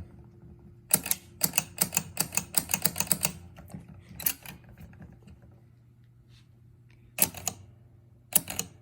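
Freshly rebuilt stepper unit from a 1975 Chicago Coin Blue Max pinball backbox being worked by hand: a quick run of sharp ratcheting clicks for a couple of seconds as it steps along, then a single click and two short clusters of clicks later on.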